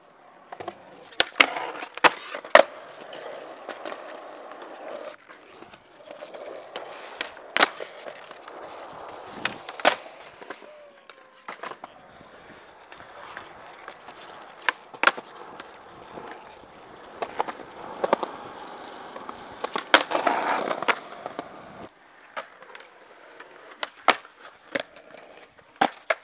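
Skateboard wheels rolling over concrete, broken again and again by sharp clacks of the board popping, flipping and landing. The rolling swells loudest about three-quarters of the way through.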